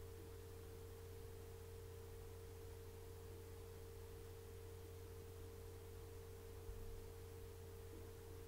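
Quiet room tone: a steady low hum with a steady mid-pitched tone above it and a faint hiss, with one faint low bump about two-thirds of the way through.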